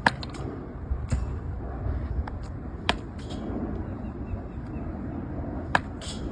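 A bat hitting balls in a batting cage: four sharp cracks at uneven gaps, the last near the end, with lighter clicks between them.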